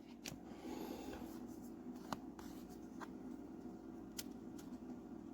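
Faint rustling and crinkling of a Pokémon booster pack being opened and its cards handled, with a few sharp crackles.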